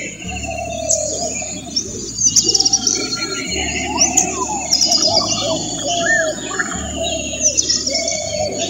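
Yellow-footed green pigeon calling in whistled, gliding notes, the whistle-like call males give in courtship. Higher, rapid chirping runs over it throughout.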